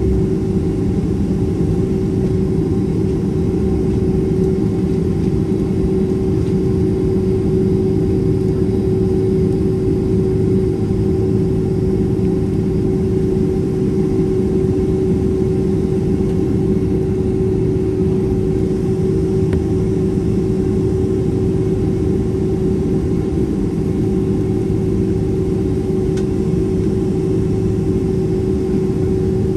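Boeing 767-300ER engines at taxi idle, heard from inside the passenger cabin: a steady drone with a constant hum held on top.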